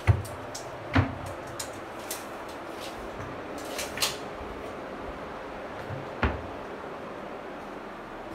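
Modular kitchen cabinet doors being opened and shut by hand, with a few sharp knocks as doors close: near the start, about a second in and about six seconds in. There are lighter clicks around four seconds in, over a steady background hiss.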